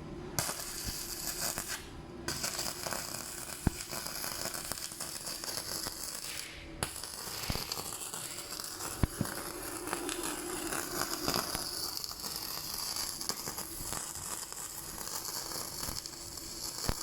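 Edon MIG 130M welder running a bead, the arc crackling and sputtering steadily. The arc stops briefly twice, about two seconds in and again near seven seconds.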